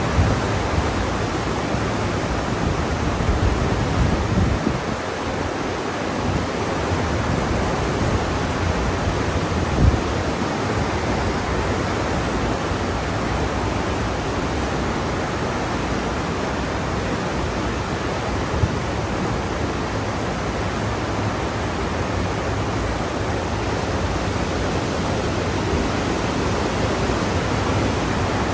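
Steady rushing and hissing of churned water in a cruise ship's wake, heard from the stern deck. A few low rumbling gusts of wind hit the microphone in the first five seconds and once briefly about ten seconds in.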